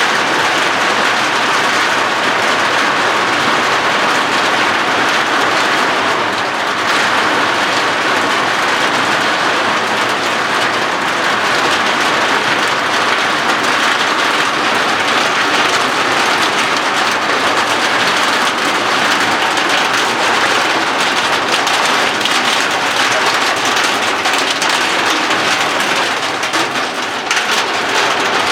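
Heavy rain falling steadily, a dense loud downpour on hard surfaces.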